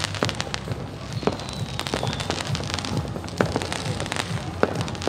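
Pháo quốc phòng fireworks, the military-factory-made consumer kind, going off in irregular sharp pops and crackles. The two loudest bangs come about three and a half and four and a half seconds in.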